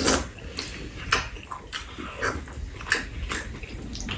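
People eating with spoons: chewing and slurping, with spoons clicking and scraping against bowls now and then.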